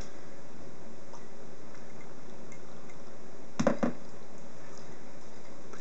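A cocktail is poured from a metal shaker tin into a glass, a faint liquid trickle. A couple of sharp knocks come about three and a half seconds in, as metalware or glass is set down on the bar.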